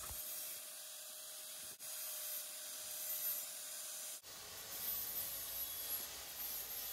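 Angle grinder with an 80-grit flap disc deburring the edge of a 4 mm stainless steel flange: a steady, hissing, sanding rasp with a faint motor whine. It breaks off abruptly twice, about two and four seconds in.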